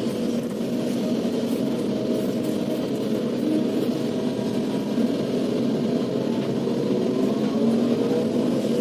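Kobelco SK380XDLC excavator's diesel engine running steadily under working load as the machine works in mud, rising slightly in level in the second half.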